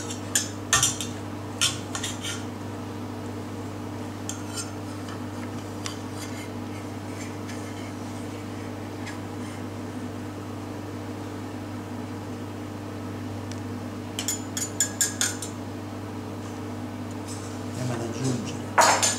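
Metal serving utensils clinking and scraping against a stainless steel sauté pan and a china plate as pasta is lifted out and plated: scattered clinks in short clusters, the busiest about two-thirds of the way through and just before the end.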